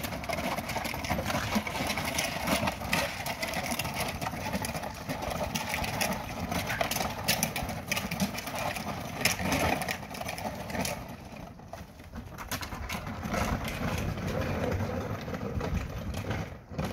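Custom multi-bay ground-penetrating radar cart being hand-pulled over asphalt: its wheels, skid plates and metal frame rolling and rattling, with many small knocks. It goes quieter for a few seconds past the middle.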